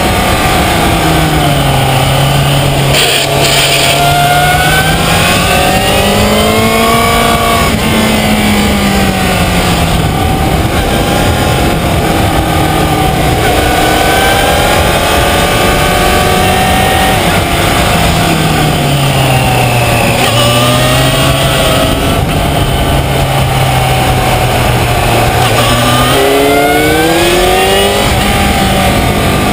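Yamaha FZ6 Fazer's 600 cc inline-four engine heard onboard at race pace, its revs rising and falling again and again as the rider accelerates, shifts gear and brakes for corners. A steady rush of wind noise runs underneath.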